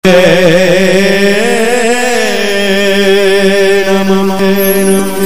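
Devotional Shiva kirtan opening: a male singer holds a long, wordless, wavering note that settles into steadier held tones, over a steady drone.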